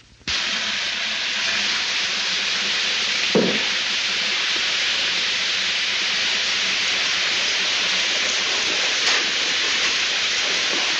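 Steady hiss of water spraying up out of a gas stove's burners, starting suddenly just after the start.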